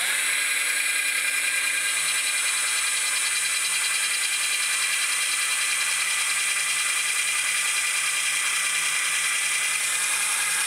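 A 12-volt cordless drill running steadily, its bit boring into a small block of scrap wood.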